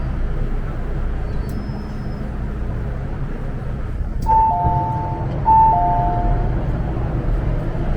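MTR M-train running with a steady rumble. About four seconds in, a two-note chime sounds, high then lower, and it repeats a second later: the onboard chime that comes before an announcement.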